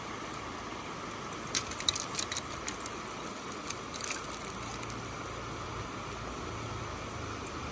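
Steady rush of a flowing trout river, with a quick flurry of sharp clicks and clacks of river cobbles about one and a half seconds in and a few more about four seconds in, as a rainbow trout is handled on the stones.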